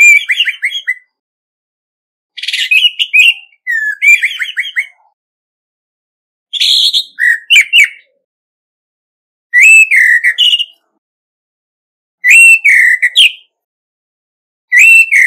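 Male orange-headed thrush (Geokichla citrina) singing its territorial song: about seven short, varied phrases of clear whistles and quick trills. Each phrase lasts about a second, with silent gaps of one to two seconds between them.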